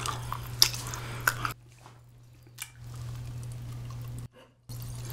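Close-miked wet chewing and mouth smacks on a sticky, chewy ramie rice cake, which stop abruptly about a second and a half in. After that there is a single click and quieter sounds, over a steady low hum.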